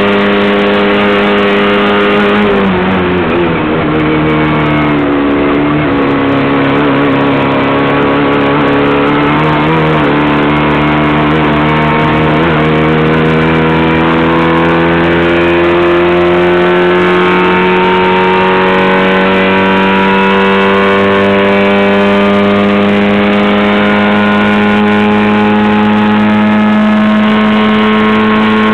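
Fiat 600 race car's engine at speed, heard from inside the car. About two and a half seconds in the revs drop and waver for a few seconds, then the engine pulls and its pitch climbs slowly and steadily.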